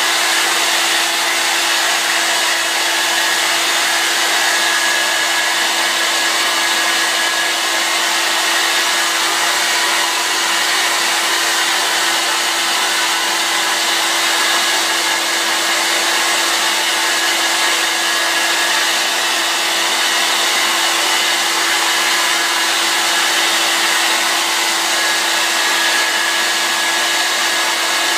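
Handheld hair dryer running steadily, blowing air onto hair: an even rush of air with a steady hum beneath it.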